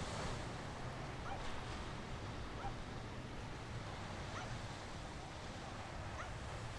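Steady wind and water noise with a low hum underneath. Faint, short rising chirps come every second or two.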